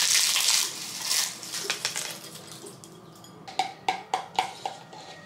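Tortilla chips crackling as they are crushed by hand over a glass bowl, then about five quick clinks of a metal spoon against the glass bowl.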